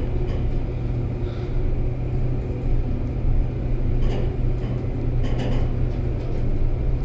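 Steady low rumble and hum inside a Schindler elevator car as it travels between floors.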